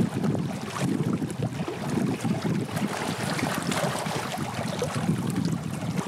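Small waves lapping and washing over the stones at a rocky lakeshore, with wind buffeting the microphone.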